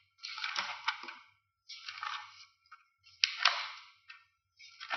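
Sheets of paper rustling in four short bursts, about one every second and a half, as pages of a project are leafed through.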